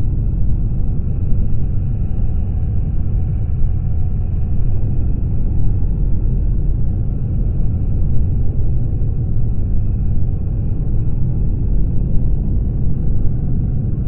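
Steady low rumble of a BMW R1200GS motorcycle under way, its flat-twin boxer engine mixed with wind noise on the mic.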